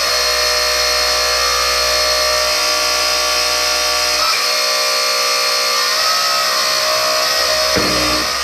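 Hydraulic pump of a 1/12-scale RC4WD Earth Digger 4200XL excavator, driven by an electric motor at high RPM, running with a steady, noisy whine. Its tone shifts briefly about four seconds in and again near the end as the boom and stick are cycled to work air out of the hydraulic lines.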